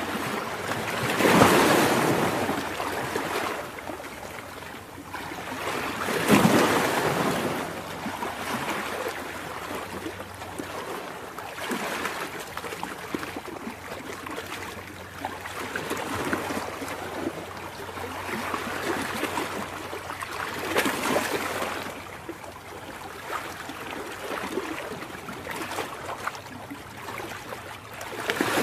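Ocean surf: waves breaking and washing up the beach, a steady rush that swells in slow surges, the strongest about a second and about six seconds in.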